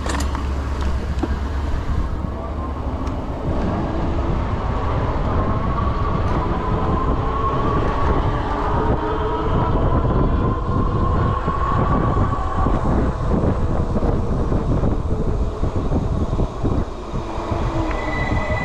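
Electric bike riding along a paved street: steady wind rumble on the handlebar microphone, with a whine that rises in pitch partway through as the bike picks up speed.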